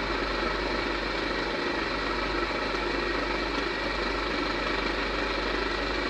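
A steady mechanical drone, even in level and unchanging.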